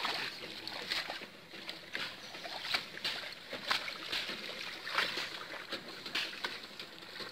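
Shallow pond water splashing and sloshing as someone wades and works in it, with irregular sharp splashes about once a second.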